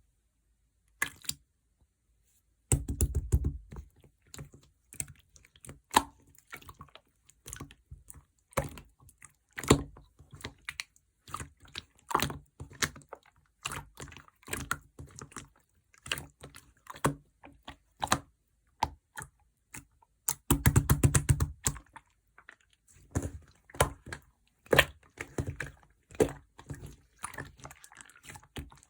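Clear slime being worked by hand, giving irregular sharp wet clicks and pops, with two longer squelching runs.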